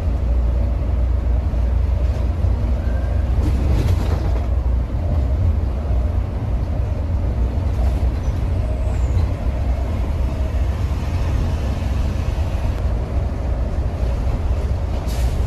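Cabin sound of a Mercedes-Benz O500R 1836 coach cruising on a highway: a steady low rumble of engine and road. Two short hisses of air come through, about four seconds in and again near the end.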